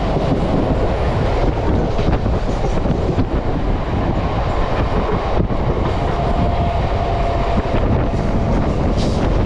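ICF-built Mumbai suburban EMU local train running at speed: steady rumble of steel wheels on the rails, with a few sharp rail-joint clicks and a faint thin whine for a couple of seconds in the second half.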